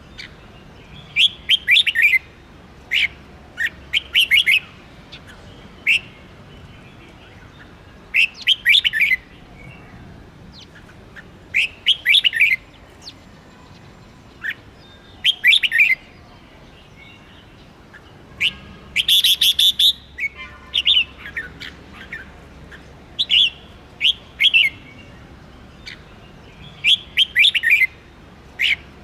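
Red-whiskered bulbul song: short phrases of quick, sharp notes repeated every one to three seconds. There is a louder, denser burst of song about two-thirds of the way through.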